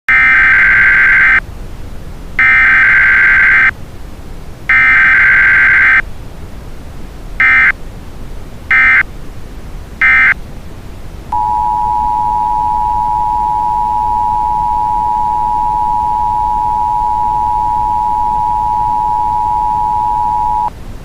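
Emergency Alert System broadcast tones: three long bursts of harsh warbling digital header data, then three short bursts, then the steady two-note attention signal held for about nine seconds before cutting off near the end.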